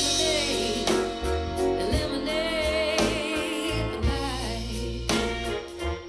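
A song with a singing voice, bass and a drum beat landing about once a second, played back through JBL Synthesis 1400 Array BG loudspeakers.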